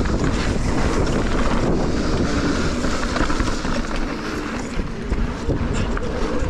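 Mountain bike descending fast on a dry dirt trail: knobby tyres rumbling over the ground and the bike rattling over bumps, with wind buffeting the camera microphone.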